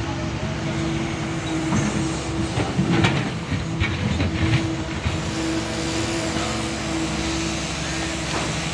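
Doosan DX140W wheel excavator's diesel engine running steadily at working speed, with a run of knocks and clatter between about two and five seconds in.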